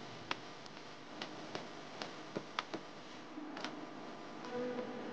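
Faint, irregular clicks and ticks, about a dozen scattered unevenly, over a low hiss.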